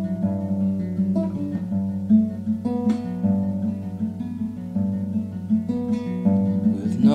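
Background music led by acoustic guitar playing chords over a low bass line.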